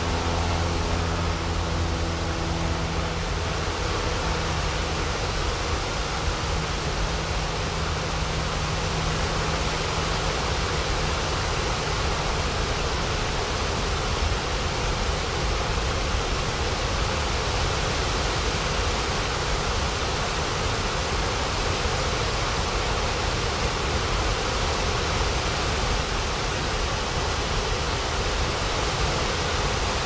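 Water pouring over a low dam spillway and crashing onto rocks below: a steady, even rush of white water.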